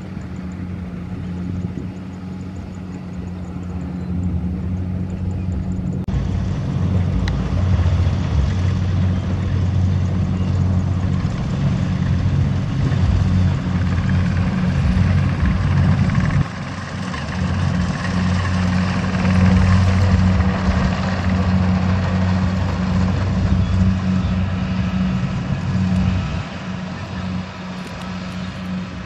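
Single-cylinder diesel engine of a two-wheel walking tractor running hard as it pulls a trailer heavily loaded with rice sacks uphill. Its steady low hum gets louder, and the sound changes abruptly about six seconds in and again around sixteen seconds in.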